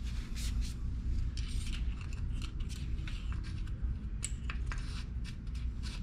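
Paper towel crinkling and rustling in quick, crisp scrapes as the oil dipstick is wiped, with small clicks of handling at the engine's oil filler, over a low steady rumble.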